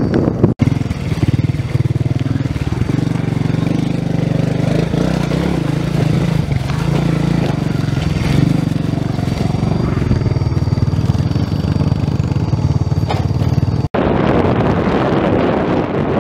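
Motorcycle engine running steadily under the rider, mixed with wind rushing over the microphone. The sound cuts off abruptly about half a second in and again near the end, and the last couple of seconds are mostly wind rush.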